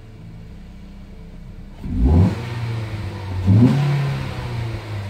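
A naturally aspirated Ford Focus four-cylinder engine, fitted with a larger 63 mm Mustang EcoBoost throttle body, idling cold. About two seconds in it is revved up sharply and held high, then given a second push about a second and a half later. It runs cleanly, with no sign of trouble from the new throttle body, and is heard from inside the cabin.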